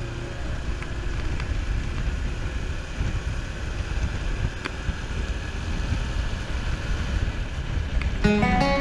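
Wind buffeting the microphone of a Honda Cross Cub 110 underway, with its small single-cylinder engine running underneath. Music comes in near the end.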